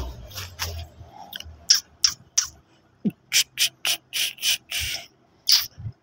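Rottweiler breathing in quick, short hissy puffs, about three a second with brief pauses.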